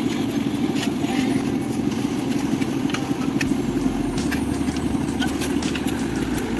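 An engine running steadily, with scattered sharp clinks and knocks over it.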